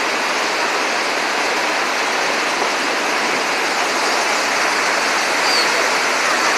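Niagara Falls' water crashing down and rushing over boulders at the foot of the falls: a loud, steady, unbroken rush of whitewater.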